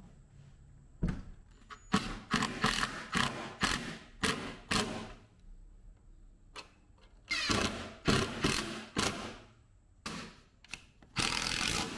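Cordless drill driving screws through a toilet flange's metal ring into a wooden pedestal, in many short bursts. The bursts come in two groups with a pause about halfway.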